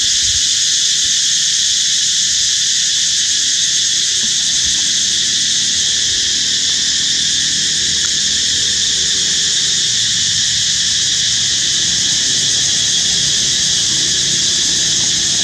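Loud, steady, high-pitched insect chorus droning without a break.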